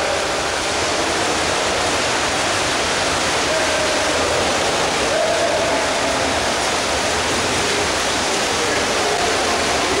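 Water splashing and churning as several water polo players swim hard across the pool, a steady rushing wash echoing in an indoor pool hall.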